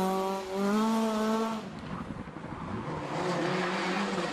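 A rally car's engine at high revs passing close, its pitch dipping briefly and then climbing for about a second and a half before the sound cuts off. A second rally car follows, its engine fainter and more mixed with noise.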